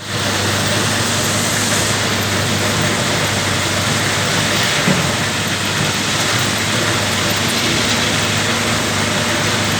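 Cat 320 GC excavator's diesel engine running steadily at a constant pitch, with one short knock about five seconds in.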